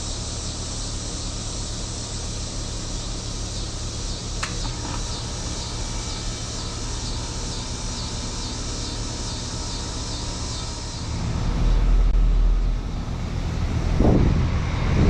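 2008 Carrier Performance Series 2-ton heat pump outdoor unit starting up: a steady hum and hiss with a short click, then about eleven seconds in it gets clearly louder with a low rushing sound as it comes up to speed, with a thump near the end.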